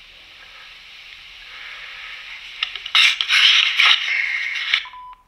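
Handheld digital voice recorder playing back a silent stretch of its recording through its small speaker: a hiss that slowly grows louder. About three seconds in, loud scraping and rustling handling noise with clicks takes over, and a short beep sounds near the end.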